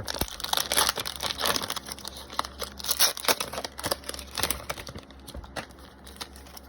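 A trading-card pack's wrapper being torn open by hand and crumpled: a dense crackle of small tearing and crinkling noises that thins out after about four and a half seconds.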